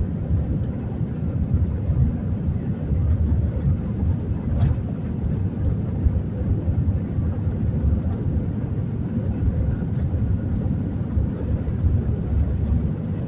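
Airbus A320-200 jet engines: a steady low rumble.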